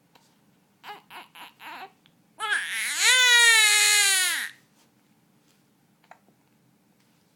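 One-month-old infant crying: four short fussing whimpers, then one long loud wail of about two seconds that rises and then sags in pitch as it ends.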